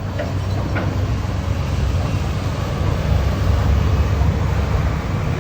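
A steady low rumble of vehicle engines and road traffic.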